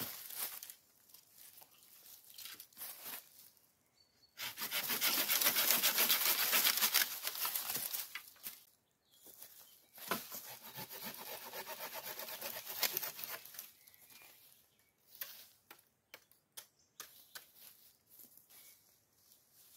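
Fallen leafy branches rustling and scraping through dry leaf litter as they are pulled and handled, with scattered twig snaps and steps on the leaves. The loudest rustling lasts about four seconds, starting about four seconds in, and a quieter stretch follows a couple of seconds later.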